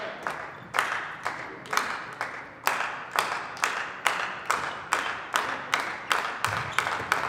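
A group of people clapping in unison, a little over two claps a second, the beat slowly speeding up.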